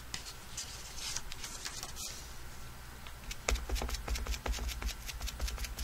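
Quick light tapping, several taps a second, starting about three and a half seconds in: a photopolymer stamp on a clear acrylic block being dabbed onto an ink pad, with soft knocks on the table beneath. Before that, only faint rustling of card being handled.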